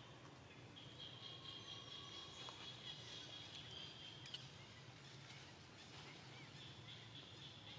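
Near silence: quiet outdoor ambience with a faint, high, steady trill from about a second in until about four seconds, coming back near the end, and a few soft clicks.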